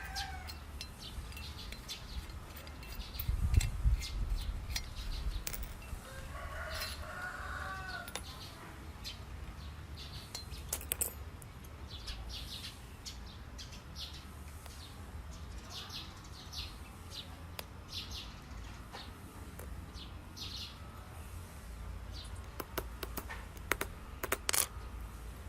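Chickens calling, with one pitched call about seven seconds in. Scattered short clicks and scrapes run through it, and a low thump about four seconds in is the loudest moment.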